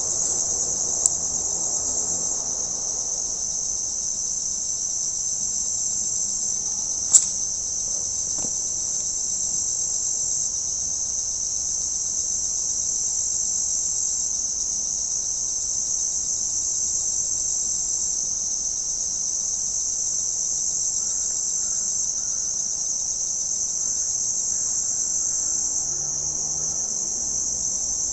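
Steady high-pitched insect chorus, with two sharp clicks, a faint one about a second in and a louder one about seven seconds in.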